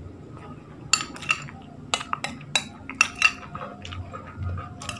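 Metal spoon clinking and scraping against a bowl as food is scooped up: about a dozen sharp clinks, some ringing briefly, starting about a second in.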